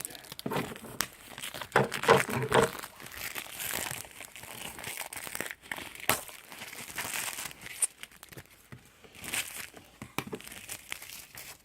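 Packaging being crinkled and torn open by hand: irregular rustling with sharp crackles, loudest about two seconds in and again near the end.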